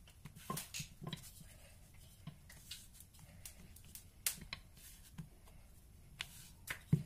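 Irregular light taps and clicks of hands and kitchen utensils at work, one or two a second, over a faint steady hum.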